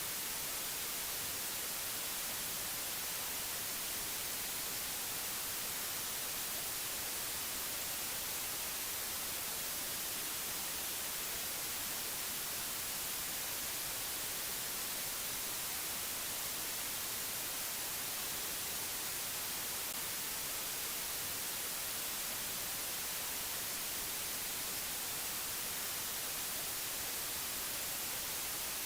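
Steady, unchanging hiss of white noise, brightest in the high end, with no rhythm or events.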